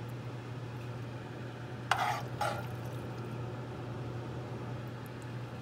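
Metal spoon scooping saucy ground-beef sloppy joe mix from a nonstick pan and spooning it onto a bun, with two short scrapes about two seconds in, half a second apart. A steady low hum runs underneath.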